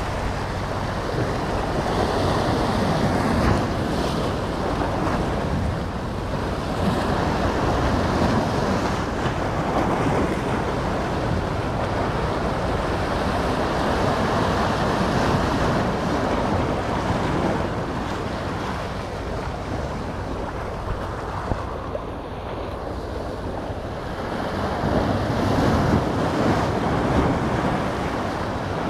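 Sea surf washing in, with wind blowing over the microphone; the rushing noise swells and eases in slow surges.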